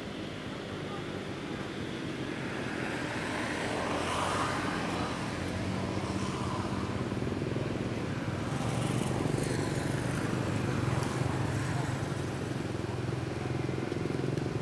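A motor vehicle engine running steadily, a low hum that grows slowly louder, over outdoor background noise.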